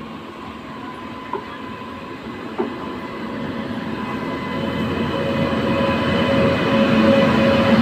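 WAP-5 electric locomotive and its passenger train running in on the next track, the rumble of wheels on rail growing steadily louder as it draws alongside. A steady whine joins about five seconds in.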